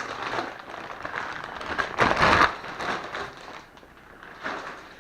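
Packaging rustling and crinkling as a tripod stand is unpacked and handled, with a louder burst of handling noise about two seconds in.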